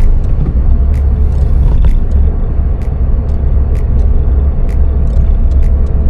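Inside the cabin of a Suzuki Swift Sport ZC32S (1.6-litre four-cylinder) on the move: a steady low rumble of engine and road noise, with light sharp ticks about twice a second.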